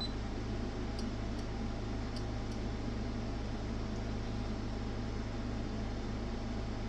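Steady fan-like hum and hiss of running bench electronics, with four faint ticks between about one and two and a half seconds in.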